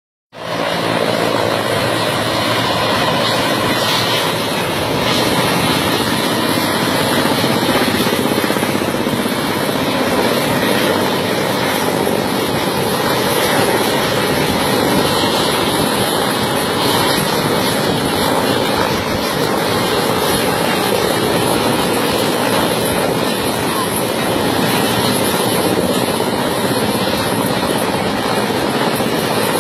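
Mi-17-type military helicopter hovering low over the water, its rotors and turbine engines making a loud, steady noise that does not let up.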